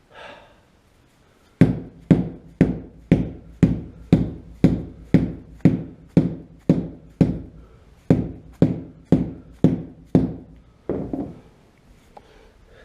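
A steady run of about twenty solid thumps, roughly two a second, with a short break partway through and a heavier pair near the end. These are blows seating the Jaguar Mk II rear window glass into its rubber seal.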